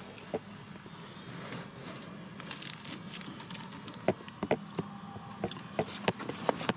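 Hands working on an opened HVAC outdoor unit: scattered clicks and knocks with light crackling, over a steady low hum.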